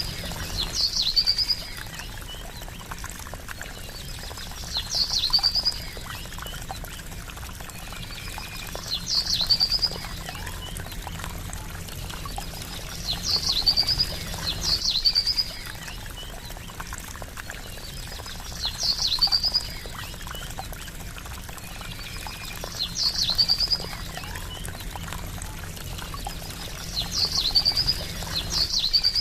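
Steady trickling, babbling water with a songbird's short, high-pitched chirping call recurring about every four seconds.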